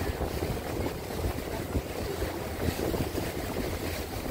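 Small motor launch on the sea: engine hum under a steady rush of wind on the microphone and water against the hull.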